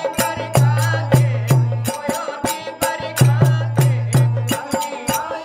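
Rajasthani folk bhajan accompaniment: a harmonium holds a steady chord while a dholak beats a rhythm with deep bass strokes, and sharp clicks of kartal clappers mark the beat about three times a second.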